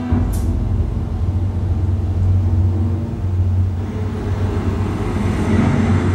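Film soundtrack played through a home-theatre speaker system: a deep, steady vehicle rumble that starts abruptly, with a rushing truck-engine noise building from about four seconds in as the truck approaches.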